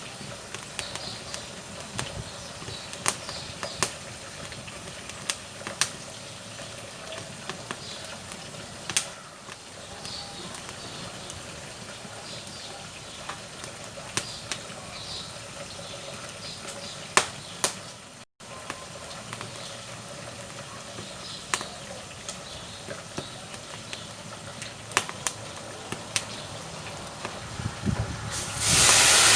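Firewood burning in a wood-burning cook stove, crackling with sharp pops every second or so over a low steady hiss. Near the end a much louder steady hiss comes in suddenly.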